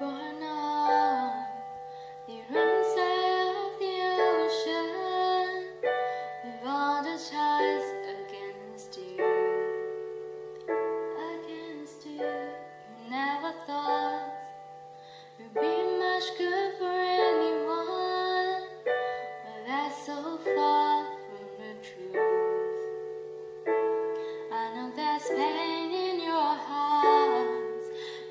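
A woman singing a slow ballad, accompanying herself on a digital piano with sustained chords.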